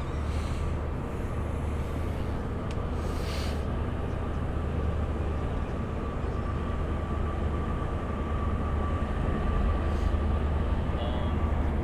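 A steady low engine drone with a faint steady whine above it, growing a little louder in the second half.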